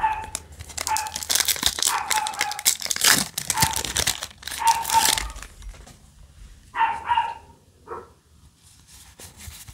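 Foil booster-pack wrapper crinkling and tearing open by hand, busiest in the first five seconds. Short high-pitched yelps break in several times, loudest near the end.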